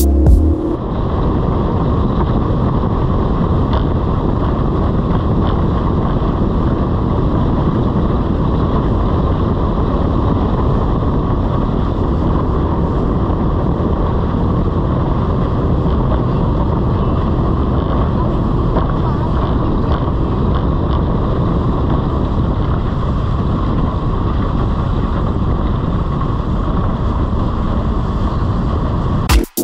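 Small speedboat running at speed, heard from a bow-mounted action camera: a steady rush of engine, water and wind buffeting on the microphone, without a break until it cuts off abruptly at the end.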